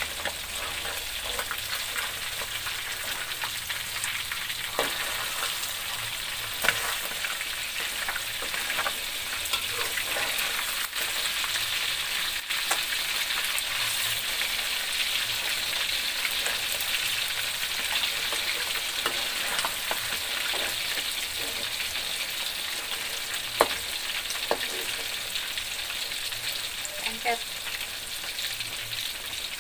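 Whole catfish deep-frying in a wok of hot oil: a steady sizzle, with a few sharp clicks here and there as a metal spatula moves the fish against the wok.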